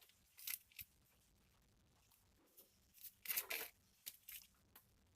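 Faint handling noises: a few short scratchy rustles and clicks, the longest about three seconds in, with near silence between them.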